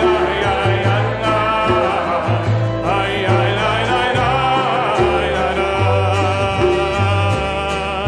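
A congregation and song leaders singing a Hebrew psalm melody together, accompanied by acoustic guitar, upright double bass and a hand drum. The bass steps through held notes about once a second under the voices.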